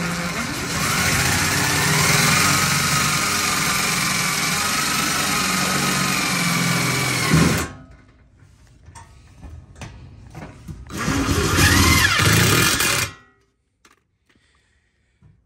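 Cordless DeWalt 20V impact driver driving screws into the sheet-metal panel: one long run that stops abruptly, then a second shorter run a few seconds later, its motor whine rising as it speeds up.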